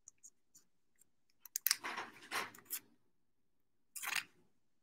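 Thin soft plastic crinkling as a trading card is slipped into a penny sleeve and handled. It comes in two short bouts, one about a second and a half in and a briefer one near the end, with a few light ticks before them.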